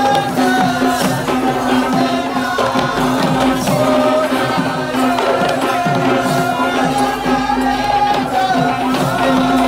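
Traditional Sri Lankan perahera procession music: continuous drumming and jingling percussion under a high, wavering melody over a steady held tone.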